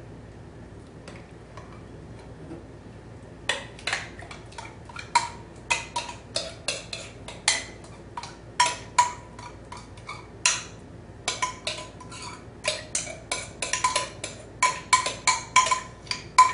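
A metal spoon clinking and scraping against the inside of a glass jar, scooping out thick barbecue sauce. The sharp, ringing taps start a few seconds in and come irregularly, about two or three a second, getting faster near the end.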